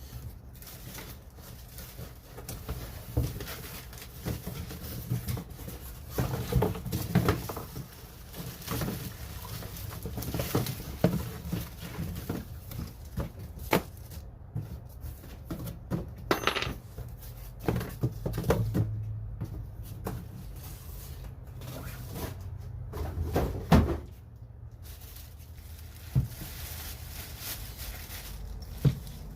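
Handling and unpacking the parts of a cordless string trimmer kit from its box: packaging rustling with scattered knocks and taps as the parts are lifted out and set down. A steady low hum runs underneath.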